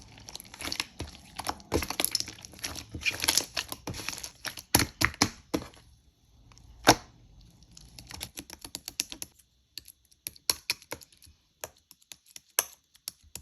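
Slime being squished and pressed by hand, a run of sticky clicks and small air-bubble pops, dense for about six seconds and then sparser, with one loud pop about seven seconds in.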